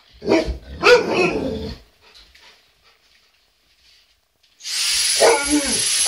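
Alaskan malamutes barking and vocalizing for about a second and a half, then a pause. About four and a half seconds in, a Dyson vacuum cleaner switches on with a steady high whine and rush of air, and the dogs start vocalizing again over it.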